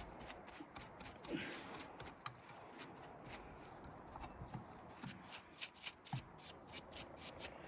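Paintbrush bristles brushing caked dust off the blades of a PS4 Slim's cooling fan: faint, quick flicking strokes, more frequent in the second half.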